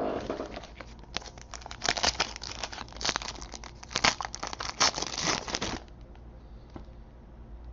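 A foil trading-card pack wrapper being torn open and crinkled by hand, a dense crackling for a few seconds that stops suddenly near the end.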